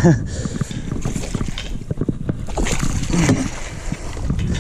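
A hooked northern pike splashing at the surface beside a small boat as it is scooped into a landing net, with the net and gear knocking against the boat. The splashing comes in two bursts, about half a second in and around three seconds in.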